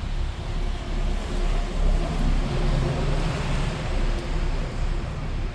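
Street traffic on a wet road: a motor vehicle's engine hum and tyre hiss, swelling to its loudest around two to four seconds in, over a low rumble of wind on the microphone.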